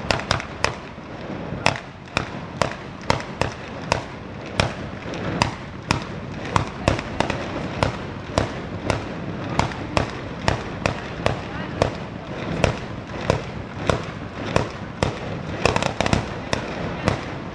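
Ligurian mortaletti, small black-powder ground mortars, firing one after another in a rapid, irregular string of sharp bangs, about two to three a second. A steady noisy hiss fills the gaps between them.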